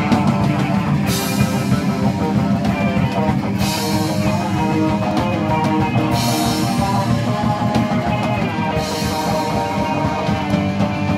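Live rock band playing loud on electric guitars, bass guitar and drum kit through amplifiers. The cymbals come in hard twice, each time for about three seconds.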